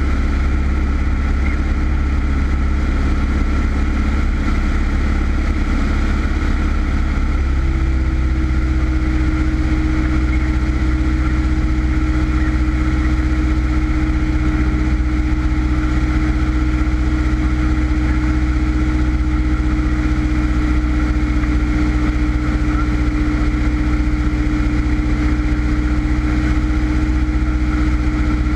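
A Cessna's piston engine and propeller running steadily in flight, heard inside the cockpit as a loud, even drone. About seven seconds in the engine note changes, and a strong hum then sinks slowly in pitch.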